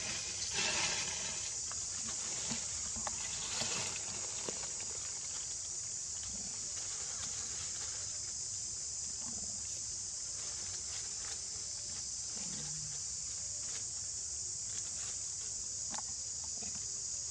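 Steady high-pitched drone of insects, unbroken throughout, with a couple of brief louder sounds in the first four seconds.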